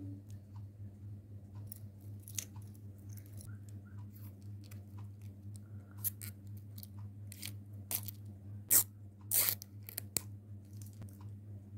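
Small clicks and crackles from handling an acrylic keyring with a metal chain and clasp and its plastic wrapper, a few sharper clicks close to the mic near the 9-second mark. A steady low hum lies under it.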